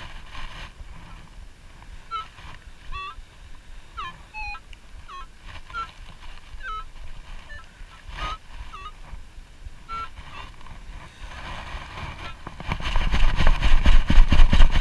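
Minelab CTX3030 metal detector giving short, wavering target tones as the coil is swept over a buried target, a signal that is 'not sounding too good'. About twelve seconds in, a long-handled metal sand scoop digs in and is shaken, sand scraping and rattling through it in quick rhythmic strokes; this is the loudest part.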